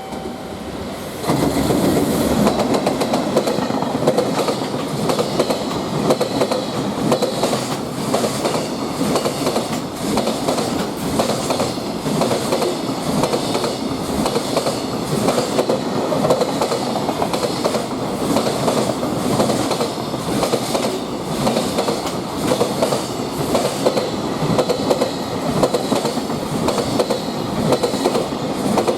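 Freight train passing close by, its wagons' wheels clattering over the rail joints in a fast, steady clickety-clack. The noise jumps up suddenly about a second in, as the train reaches the spot, and stays loud.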